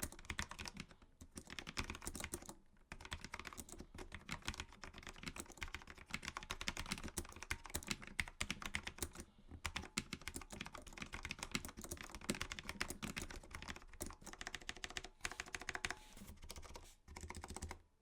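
Typing on a mechanical keyboard with linear switches: quick, irregular keystroke clicks in runs, broken by a few short pauses.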